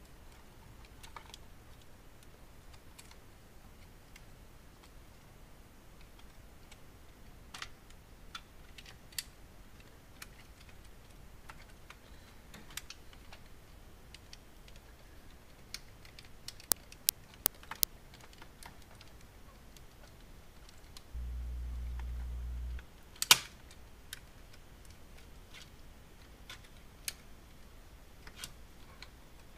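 Scattered small plastic clicks and taps as the Beomaster 8000's control-panel cover, with its sliders and switch connectors, is worked by hand onto its circuit board. A quick run of four sharp clicks comes a little past halfway, then a brief low hum and, just after it, one louder knock.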